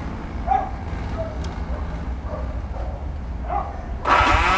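A dog yips faintly a few times. About four seconds in, a Honda motorcycle's electric starter cranks the engine strongly, a sign that the freshly charged battery is full.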